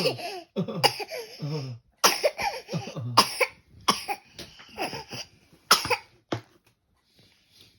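A small child coughing, a rapid run of about a dozen short coughs over roughly six seconds before stopping.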